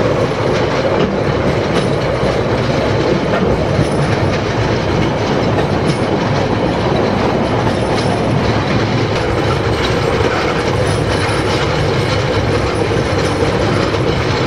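Train in motion: a steady, loud rumble of wheels running on the rails, with faint clicks from the track.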